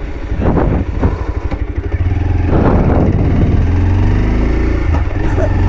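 Motorcycle engine running while being ridden, a deep steady rumble that rises in pitch about three and a half seconds in as the bike speeds up.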